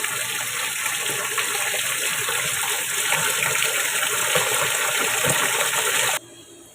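Water gushing steadily from a tap into a washing machine tub, filling it to test whether the cleaned drain valve still leaks. It stops abruptly about six seconds in.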